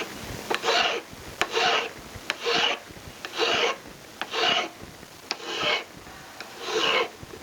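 A hand file rasping across a silver ring, rough-shaping its domed profile: steady strokes about once a second, with sharp clicks between them as the file is lifted and set back on the work.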